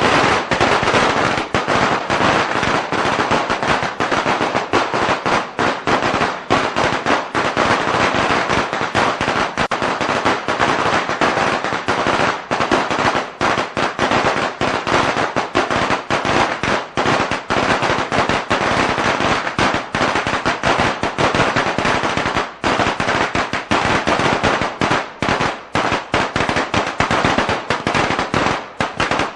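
A string of Chinese firecrackers going off in a rapid, unbroken stream of sharp cracks.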